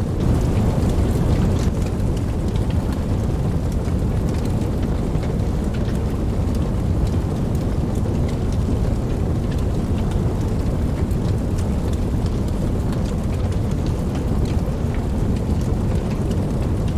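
Steady rain with a continuous low rumble of distant thunder underneath, and scattered ticks of single drops; the rumble swells slightly about a second in.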